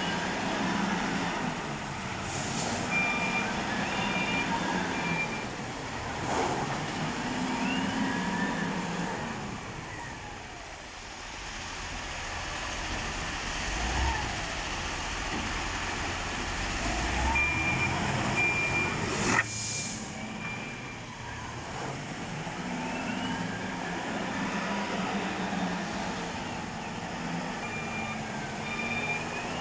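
Heavy diesel machinery working: a wheel loader's engine revving up and easing off in cycles as it loads a tipper truck with crushed stone, with a reversing alarm beeping in short spells three times. A single sharp knock comes about two-thirds of the way through.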